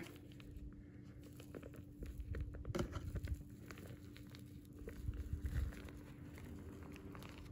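Parchment paper being peeled off the bottom of a baked angel food cake: faint rustling and crinkling of the paper, busiest about two seconds in and again around five seconds, with a low steady hum underneath.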